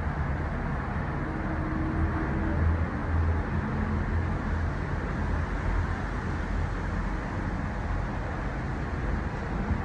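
Steady low rumble and air noise inside a moving Disney Skyliner gondola cabin as it travels along the cable, with faint steady hums.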